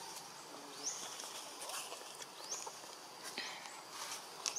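Forest ambience with a short, high, upward-sweeping animal call repeated three times, about every second and a half to two seconds, and a few faint clicks.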